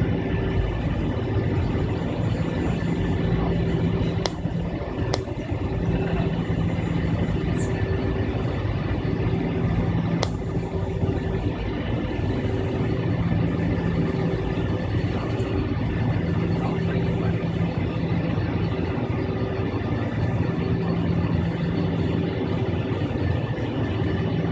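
Avro RJ100's Honeywell LF507 turbofans at taxi power, heard inside the cabin as steady engine noise. A low hum fades in and out every few seconds, and a few sharp clicks come through between about four and ten seconds in.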